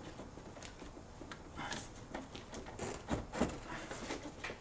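A plastic vacuum check valve being pushed and worked into its rubber grommet on the brake booster of a BMW E46: rubbing and scraping with a few light knocks, loudest about three seconds in.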